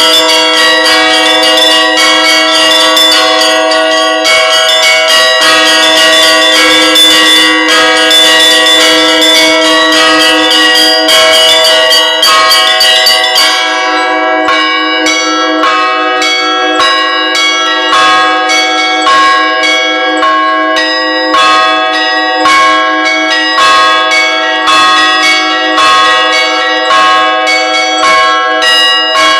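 Bells ringing, a steady run of struck notes that ring on and overlap. About halfway through the run thins out into distinct strikes at roughly two a second.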